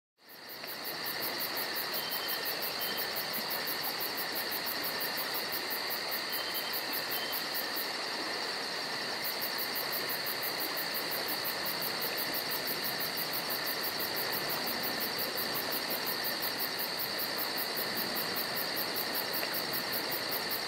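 Steady insect chorus: a continuous high buzz with a fast, evenly pulsing trill above it, and a few faint short chirps.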